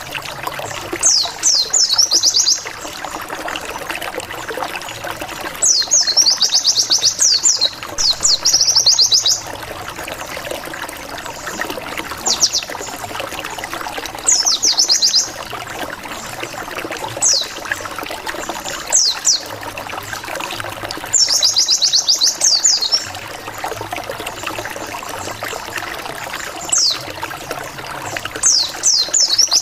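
White-eye (pleci) song: bursts of rapid, high, downward-slurred 'wit wit wit' notes, some single and some in fast runs, repeated every few seconds. A steady trickle of running water plays underneath.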